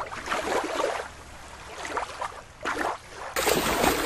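River water splashing and sloshing as toys are moved through it, an irregular run of small splashes, louder for the last half second or so.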